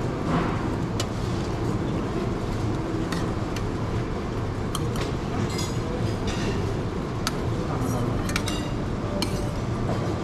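Metal serving utensils clinking lightly against a pan and a ceramic plate several times, over a steady background hum of a busy restaurant with faint voices.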